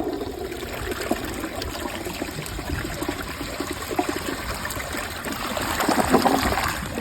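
A 2005 Crane Plumbing Atlas toilet flushing: rushing, gurgling water that gets louder toward the end and then cuts off suddenly. It is flushing a plastic grocery bag away in a flush-performance test.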